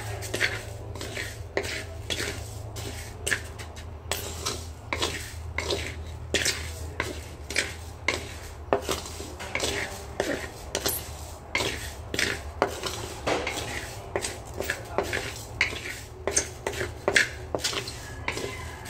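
Wooden spatula stirring and scraping dark-roasted rice grains around a dry non-stick pan, with repeated short strokes roughly two a second over a steady low hum.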